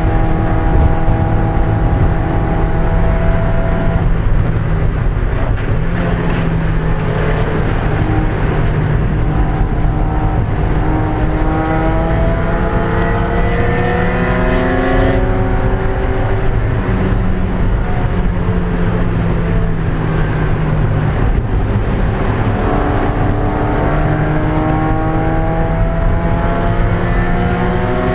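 A racing Mazda Miata's 1.8-litre four-cylinder engine running hard. Its pitch holds steady on the straights, then climbs under acceleration and drops back at gear changes, mostly in the middle and near the end. A steady rush of road noise runs under it.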